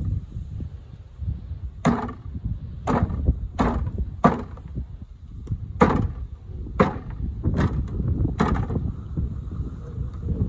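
Eight sharp chopping blows on a wooden block, about one a second, as a raccoon carcass is cut up, with low wind rumble on the microphone.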